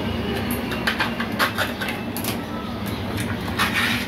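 A steady low mechanical hum, with several short light clicks and scrapes over it, the last and longest near the end.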